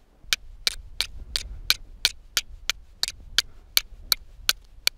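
A fire steel striking the sharp edge of a flint pebble in a steady series of sharp clicks, about three a second, chipping off sparks onto char cloth.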